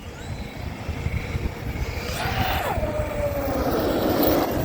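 Large electric RC truck running: its brushless motor whines and drops in pitch a bit over two seconds in, followed by a rush of tyre and ground noise as it lands and drives on.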